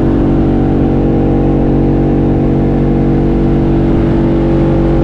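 Boat engine running steadily underway at cruising speed, its drone holding one even pitch.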